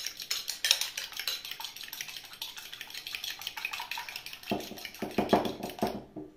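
Metal spoon beating a raw egg in a glass bowl: rapid clinking of metal against glass, getting louder near the end and stopping abruptly about six seconds in.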